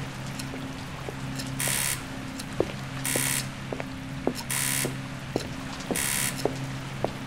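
Audio-drama sound-effects bed: a low steady hum, with four evenly spaced hissing swishes about a second and a half apart and scattered short clicks.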